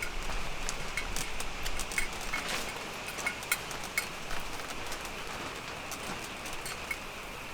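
Chicken skewers sizzling on a camping grill: a steady hiss with irregular small crackles and pops.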